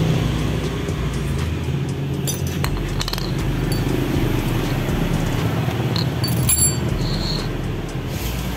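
Background music, with a few short metallic clicks from the scooter's one-way starter clutch and its rollers being handled.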